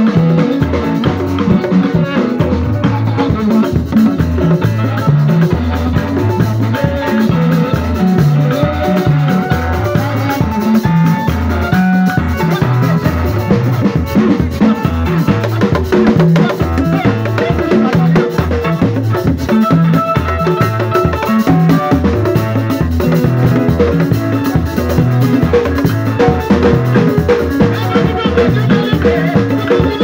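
Live band music: a row of tall wooden drums struck with sticks and a drum kit keep a quick, steady beat over a pulsing bass line, with pitched melody notes above.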